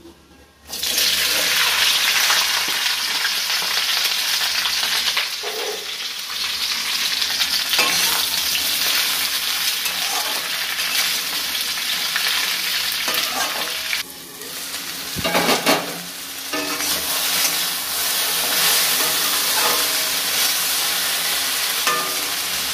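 Cut okra dropped into hot oil in a wok, setting off a sudden loud sizzle less than a second in, then frying with a steady sizzle while a metal spatula stirs and scrapes the pan. The sizzle dips briefly about two-thirds through, with a clatter just after.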